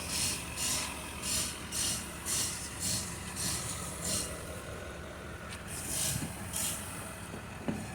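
Rhythmic abrasive strokes worked by hand, about two a second, stopping shortly before the end, over a steady low hum.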